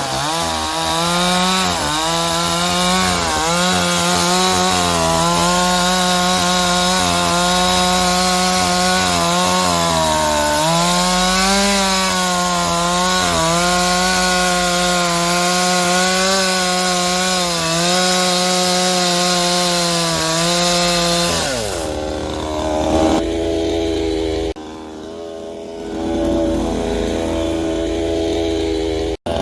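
Yuseong Metal gasoline chainsaw running at high revs and cutting wood, its engine pitch dipping and recovering under load. About 21 seconds in it drops back to a lower, steady idle.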